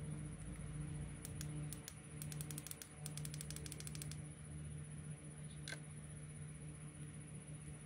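A quick run of short, sharp clicks like typing for about three seconds, then one more click a little later, over a steady low hum.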